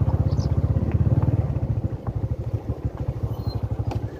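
A small engine running with a fast, even putter, easing off a little in loudness about two seconds in.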